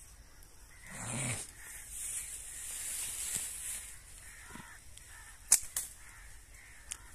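Two sharp cracks a quarter-second apart, about five and a half seconds in, from a slingshot shot at a bird up in a tree; a smaller click follows near the end. Before them comes a rush of noise, and faint bird calls sound in the background.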